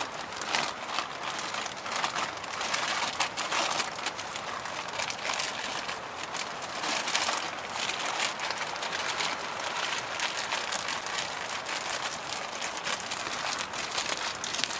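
Zip-lock plastic bag crinkling and rustling as bannock dough is squeezed and kneaded inside it, in a dense run of small crackles.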